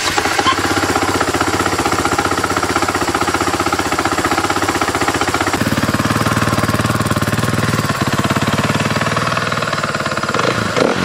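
KTM 450 EXC's single-cylinder four-stroke engine idling steadily through its stock KTM silencer, just after starting, with an even rapid thumping. A little past halfway the note turns deeper.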